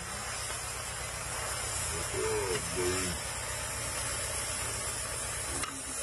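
Chicken curry sizzling in a black iron kadai over an ember fire, a steady hiss as a metal ladle stirs it. A short wavering pitched call sounds in the background about two seconds in.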